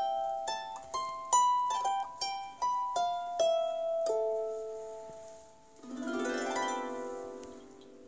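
Harp strings plucked by hand: about ten separate notes of a short melody, then a note left to ring, and about six seconds in a quick glissando swept across the strings that rings on.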